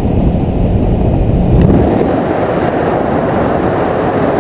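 Tandem paramotor's engine and propeller running in flight, mixed with heavy wind rush on the microphone. About two seconds in the deep rumble thins and the hiss of wind grows.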